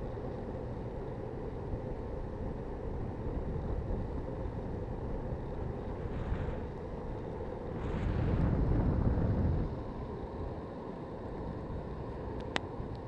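Wowgo 2S electric skateboard rolling steadily over asphalt, its wheels giving a continuous low rumble mixed with wind on the microphone. A louder stretch comes about eight seconds in, and a single brief click near the end.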